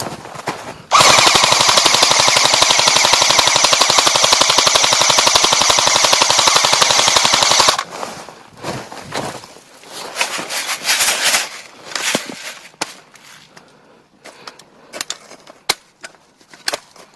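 Airsoft gun firing full-auto in one long continuous burst of about seven seconds, starting about a second in and cutting off sharply. Scattered short clicks and rustles follow.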